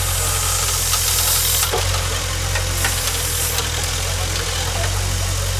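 JCB backhoe loader's diesel engine running steadily while the backhoe arm digs into earth, with a few brief knocks.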